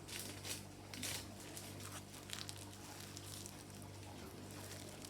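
Foil wrapper of a trading-card booster pack crinkling and tearing as it is opened: a run of short rustles in the first two and a half seconds, then fainter handling, over a steady low hum.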